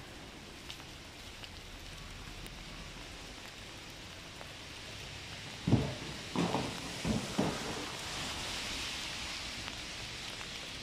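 Steady hiss of rain falling. About six seconds in there is a quick run of four short, dull thumps.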